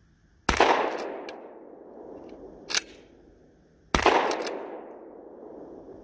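Two shots from a 12-gauge Canuck Commander shotgun loaded with birdshot, about three and a half seconds apart, each fading away in a long echo. There is a short sharp click between them.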